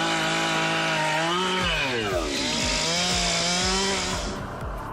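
Gas chainsaw running at high revs while cutting through a large log. The engine pitch sags about two seconds in as it bogs under load, then climbs back. The cutting noise stops near the end.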